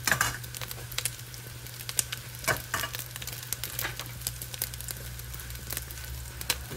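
Chicken skin and bones frying in a little rendered fat in a non-stick pot: a steady sizzle with many sharp pops and crackles, a few louder ones just after the start and about two and a half seconds in.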